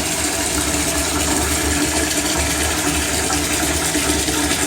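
Bath tap running steadily, water pouring into a filling bathtub, with a low steady hum beneath the rush.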